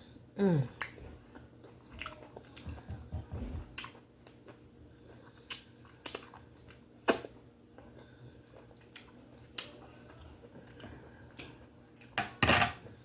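Close-up chewing and biting of steamed conch meat, with wet mouth clicks and smacks scattered throughout. A short falling vocal sound comes about half a second in, and a louder burst near the end.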